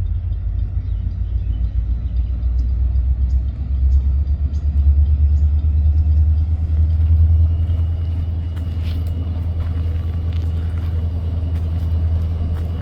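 Low, steady motor-vehicle rumble that swells from about four seconds in and eases back a little after about eight seconds.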